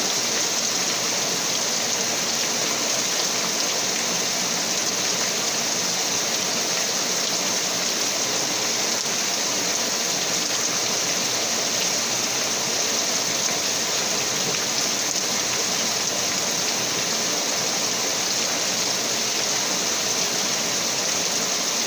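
Steady, even rush of water with a bright hiss, unbroken throughout.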